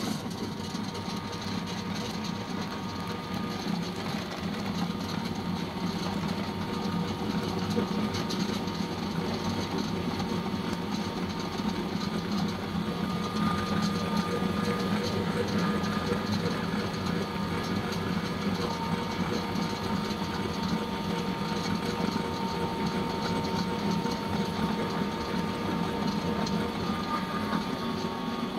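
A feed pellet mill driven by an electric motor runs steadily, pressing feed mash into pellets, with a constant hum and steady whine.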